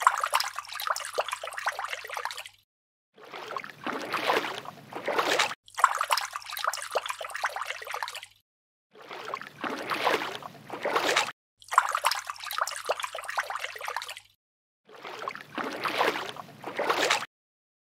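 Water poured in a thin stream from a small wooden cup onto wet sand, trickling and splashing. It comes as six separate pours of two to three seconds each, with short silences between them.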